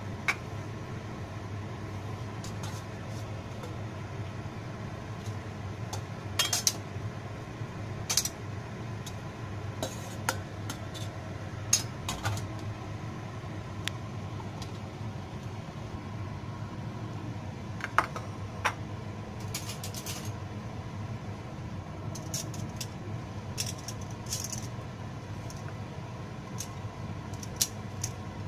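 Scattered sharp clinks of cooking utensils against stainless steel pots, a wire mesh strainer and bowls as noodles are stirred, drained and served, over a steady low hum.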